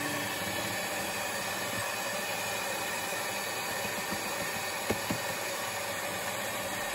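Electric hand mixer running steadily, its beaters churning a wet flour dough, with two short knocks about five seconds in.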